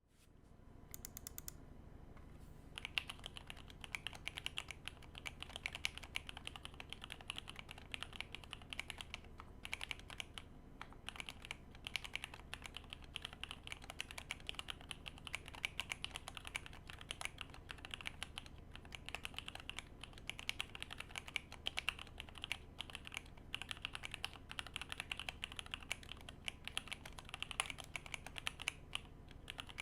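Fast, continuous typing on a KBD67 Lite R3 65% mechanical keyboard with lubed JWICK Black linear switches and Cherry-profile keycaps. A few keystrokes come about a second in, then steady rapid typing starts at about three seconds, with a couple of brief pauses.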